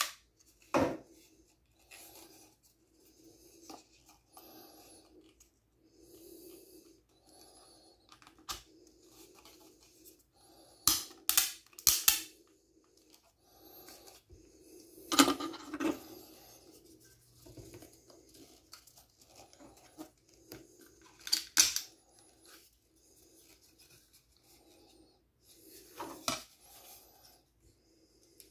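Handling noise of a small diecast model airplane being turned over in the fingers: quiet rubbing broken by a handful of sharp clicks and taps as its parts knock against fingers and a plastic stand.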